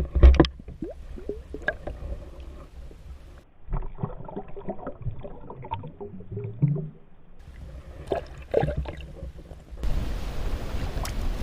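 Water gurgling and sloshing against a kayak, with scattered light knocks and clicks, and a louder thump at the very start.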